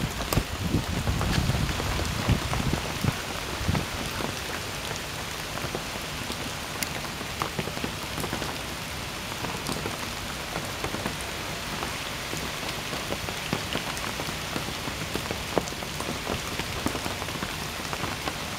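Steady rain falling on standing floodwater, with many small sharp drop ticks. A low rumble sits under it for the first few seconds.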